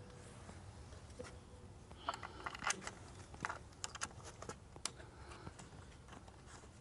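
Light clicks and short rustles of hands working a plastic transducer bracket and its cable onto a trolling motor shaft, clustered from about two to five seconds in.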